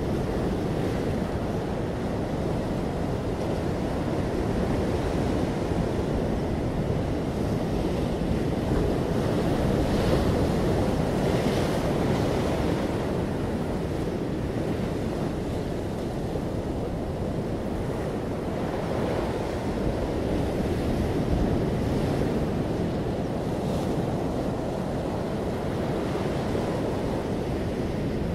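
Steady low rushing noise that rises and falls in slow swells.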